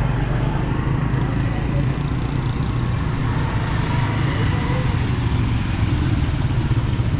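Busy street traffic noise, mostly the engines of small motorcycles running close by, with a steady low hum and background voices.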